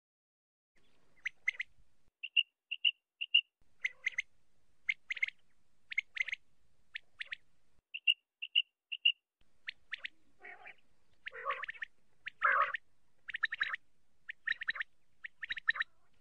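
Common quail calling in short, sharp bursts, one to two calls a second. Twice there is a run of three quick, clear notes, the male's 'wet-my-lips' song. The calls grow fuller and busier in the second half.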